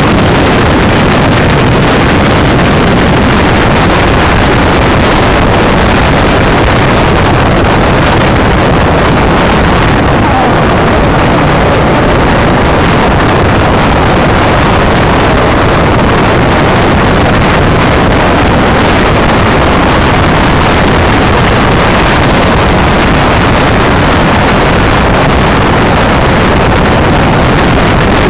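Loud, steady rush of wind and road noise from a Greenpower electric race car running at speed, picked up by a microphone mounted low beside the front wheel and open to the wind.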